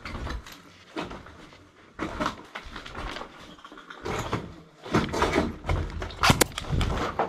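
Footsteps scuffing on a gritty, rubble-strewn floor inside a small brick room, with gear clattering and knocking as the wearer moves. One sharp crack comes a little over six seconds in.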